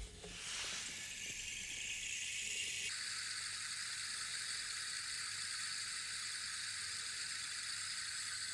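Manglid wood rain stick pouring: its filling trickles down inside in a steady rain-like hiss that starts about half a second in and fills out lower about three seconds in.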